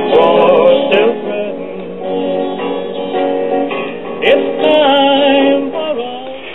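A vinyl record of a song with singing, played through an MPC Systems classroom record player's ceramic cartridge and built-in amplifier. The gain has been raised with a 47 ohm resistor to suit the low-output cartridge: it sounds better, but would still be better with the right cartridge.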